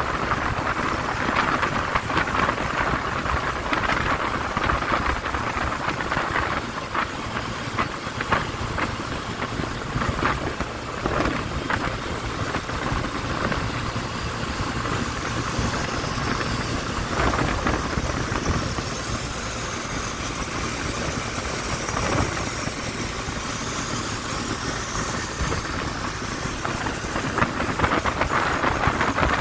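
Wind buffeting the microphone while riding a Yamaha Crypton S at cruising speed, with the small motorcycle's engine and road noise running steadily underneath.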